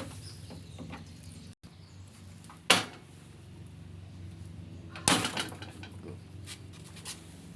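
Two sharp knocks about two and a half seconds apart, the second followed by a brief clatter of smaller knocks, over a steady low hum.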